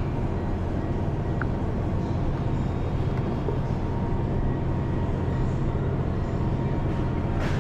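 Car driving, with steady engine and road rumble heard from inside the cabin and a short click near the end.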